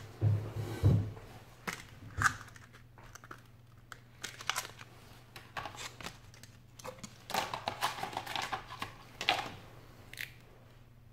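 Thin clear plastic packaging tray crackling and clicking as it is handled, in scattered bursts that are busiest in the second half. Two dull knocks come near the start.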